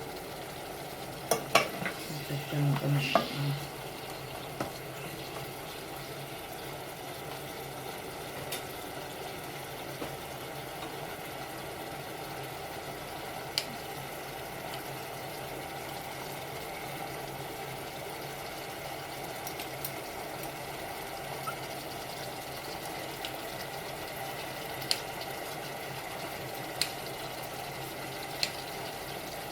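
Food sizzling steadily in a frying pan as it is stir-fried, with a few sharp clicks of a utensil against the pan, several in the first few seconds and a handful more near the end.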